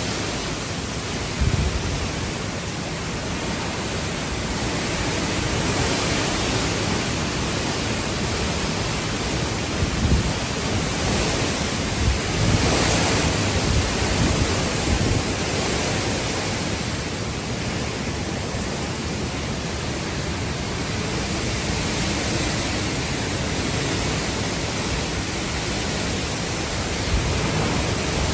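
Hurricane Beryl's storm wind rushing steadily, swelling about halfway through, with a few gusts buffeting the microphone.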